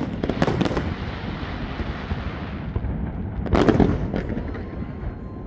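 Aerial fireworks display: shells bursting with sharp bangs, a group about half a second in and another cluster past the middle, with a steady crackling hiss between the bursts.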